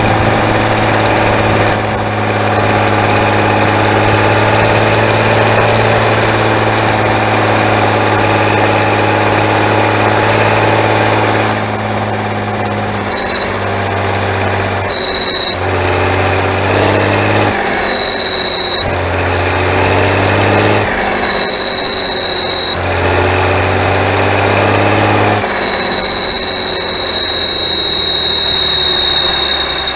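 David Brown 1690 tractor's turbocharged diesel engine running under way, with a high turbo whistle over the engine note. About halfway in, the whistle and engine note start jumping up and down in pitch every second or two.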